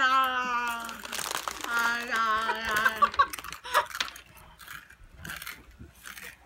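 A child's wordless, drawn-out vocal sounds through a cheek retractor holding the mouth wide open: two held cries, the second starting about two seconds in, with a noisy burst between them. After that, quieter crinkling and crunching clicks.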